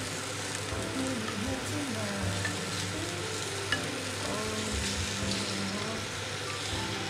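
Raw chicken breast pieces sizzling steadily in hot oil in a frying pan as they are laid in with tongs. One sharp click comes about halfway through.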